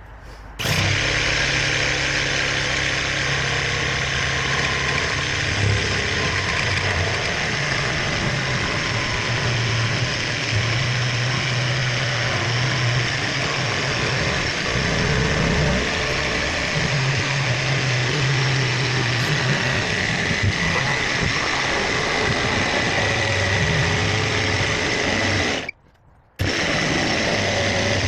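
A power tool's motor running steadily under load, cutting out for a moment near the end.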